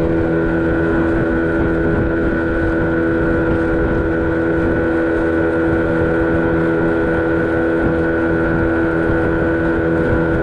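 Small boat's engine running steadily at cruising speed, its pitch holding constant, with wind noise on the microphone.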